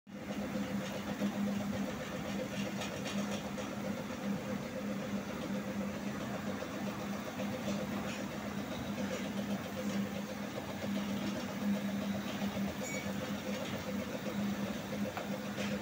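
Metal lathe running with a tailstock drill boring into a spinning metal bar: a steady machine hum.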